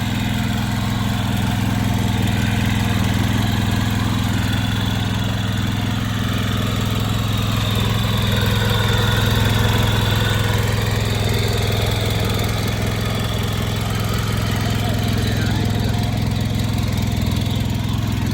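Power weeder's small engine running steadily at an even speed.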